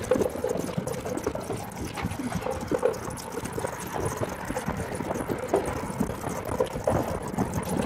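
Golf cart rolling over a rough gravel track: tyres crunching on stones and the cart rattling, a dense jumble of irregular knocks and clicks.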